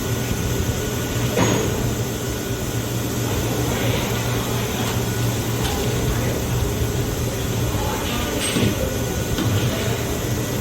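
Wheel balancing machine spinning a motorcycle wheel with a newly fitted tyre, a steady low machine hum with a few faint knocks.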